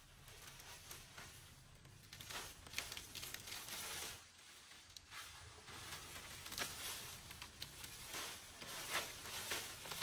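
Irregular rustling and crinkling with scattered sharp, light clicks.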